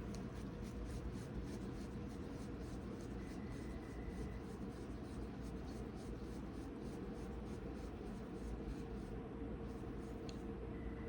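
Hands rolling and shaping soft bread-roll dough into balls on a work surface: a soft, repeated rubbing and scraping, about three strokes a second at first, over a steady background hum.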